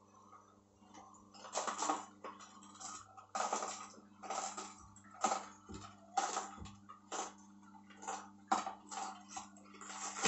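Horizontal slow juicer's auger crushing celery stalks fed down its hopper: crunching and snapping bursts every second or so, starting about a second and a half in, over the motor's steady hum.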